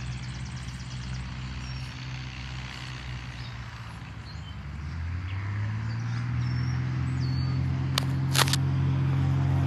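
Light propeller airplane's engine running, a steady low drone that climbs in pitch and grows louder about halfway through. A couple of sharp knocks near the end.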